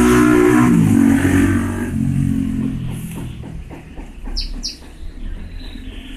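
A motor vehicle engine running loudly, then dropping in pitch and fading away within the first two seconds, as a vehicle passes. Light clicks follow, and two short, high bird chirps come about two-thirds of the way in.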